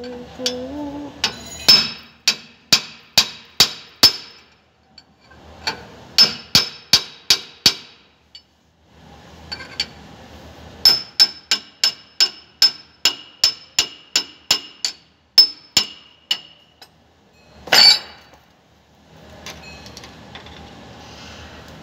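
Hammer striking steel at a Hyundai bus's rear wheel hub. Runs of sharp, ringing metal blows come about two a second, with short pauses between the runs, then one heavier blow near the end.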